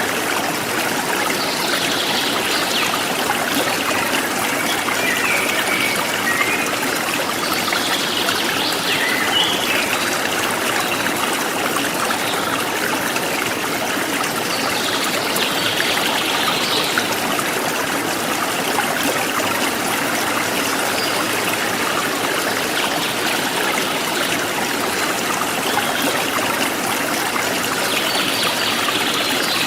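Forest stream flowing steadily, with a constant rush and trickle of water. Bird chirping rises above it a few times.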